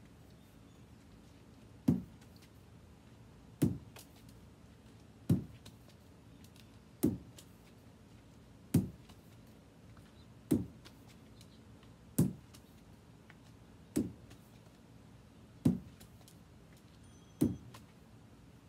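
Rubber lacrosse ball smacking during repeated throw-and-catch with a lacrosse stick: ten evenly spaced sharp smacks, about one every 1.7 seconds, some followed by a faint tap.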